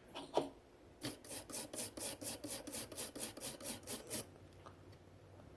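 A brush scrubbing a phone's circuit board in rapid back-and-forth strokes, about five a second, stopping about four seconds in. It is cleaning residue off the pads where an FPC connector was removed.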